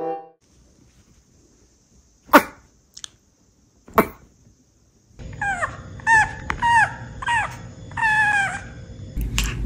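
A chihuahua gives two short, sharp barks into a microphone about a second and a half apart, then a string of about six high, dramatic squeals, each falling in pitch, the last one drawn out.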